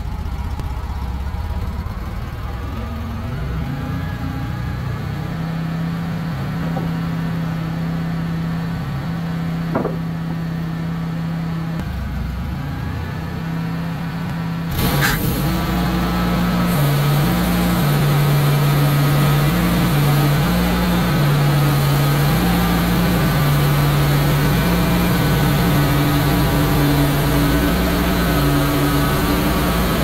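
Wood-Mizer LX150 band sawmill's engine running steadily. About halfway through there is a sharp clack, and the engine then runs louder with a wavering pitch.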